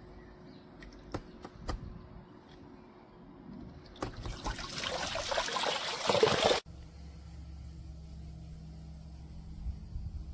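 Water pouring and splashing, starting about four seconds in, growing louder and cutting off suddenly a couple of seconds later.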